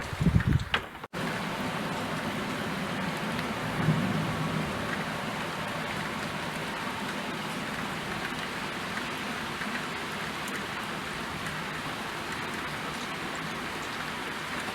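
Steady rain falling, an even hiss with a slight swell about four seconds in. In the first second there is loud low rumbling that cuts off abruptly, as at an edit, before the rain takes over.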